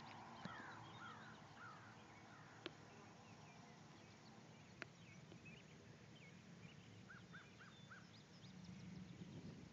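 Faint birdsong over quiet rural outdoor ambience: a few falling chirps in the first two seconds and a quick run of four short notes about seven seconds in, with two faint clicks between.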